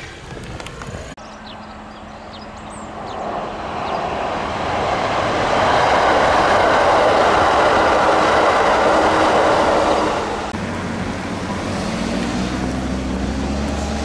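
Kintetsu Osaka Line electric train going by, its rumble swelling over a few seconds, staying loud for about four seconds, then falling away fairly suddenly into a steady low hum.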